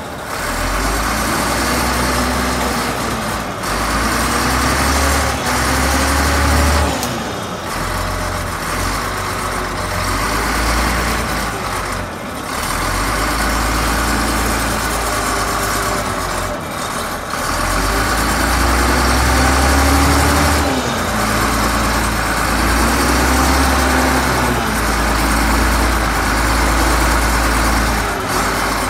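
Shantui SD16 crawler bulldozer's diesel engine running loud, with a deep rumble. Its revs rise and fall repeatedly as the dozer moves about on its tracks.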